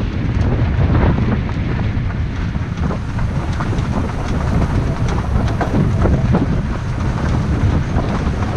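Wind buffeting the microphone over the steady rumble of a wheeled dog cart rolling on a gravel track behind a running sled-dog team, with scattered ticks and rattles from stones and the rig.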